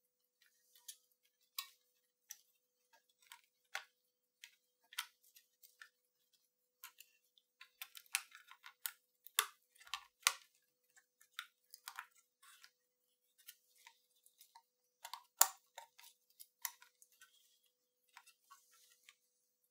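Scattered small plastic clicks and taps as a circuit board is fitted and pressed into the plastic case of a Sony WM-F63 Sports Walkman, with one sharper click about three-quarters of the way through.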